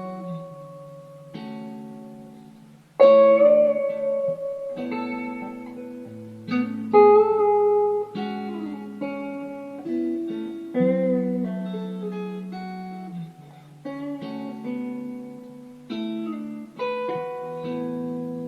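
Slow plucked guitar music: chords and single notes struck every second or two, each left to ring out and fade.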